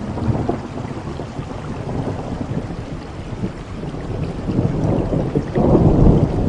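Thunder rumbling over steady rain: a low rumble comes in suddenly at the start, eases a little, then swells louder over the last couple of seconds.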